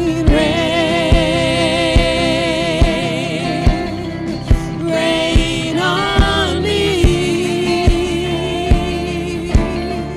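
Live gospel worship band: women's voices singing long held notes in harmony with vibrato, over a slow, steady drum beat of a little more than one hit a second.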